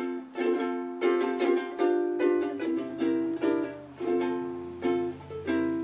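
Ukulele strummed in chords with a steady, even rhythm of two to three strums a second, playing the introduction before the singing comes in.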